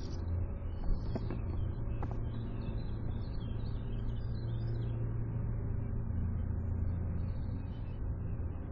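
Faint, scattered bird chirps and twitters over a steady low rumble.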